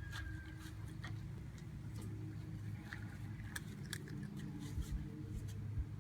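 Scattered light clicks, irregular and a few to the second at most, over a steady low hum.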